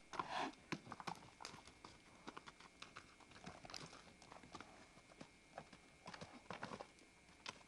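Arabian stallion's hooves striking a dirt and gravel paddock: irregular, scattered hoofbeats and scuffs as he moves about, with a few louder clusters of strikes.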